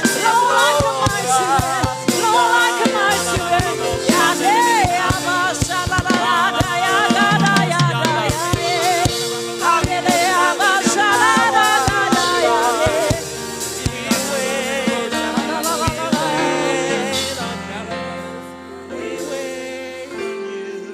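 Gospel worship music: voices singing with vibrato over held keyboard chords and drum hits. The drums drop out about two-thirds of the way through and the music fades down near the end.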